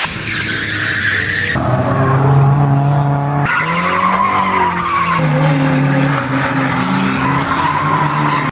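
Volvo drift car engines revving hard with tyres spinning and sliding, in short clips cut together, with abrupt changes about one and a half and three and a half seconds in. The engine pitch holds steady, then wavers up and down.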